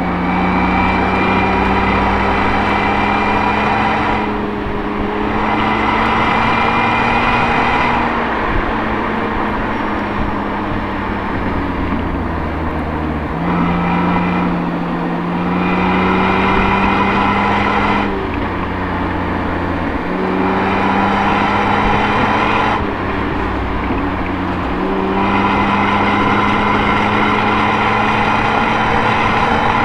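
Toyota Altezza's 1G-FE straight-six running through an Apexi aftermarket exhaust, heard close to the tailpipe: the engine note climbs slowly, then drops back, about six times over, growing louder on each climb and softer as it falls away.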